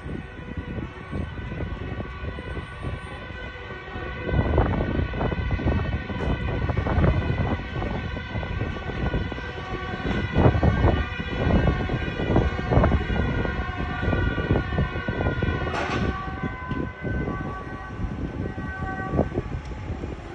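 Emergency vehicle siren sounding steadily, with irregular low rumbling gusts over it from about four seconds in.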